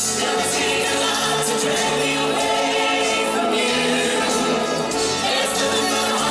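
A mixed group of male and female singers singing together in chorus into microphones, amplified through stage speakers with music, holding long notes.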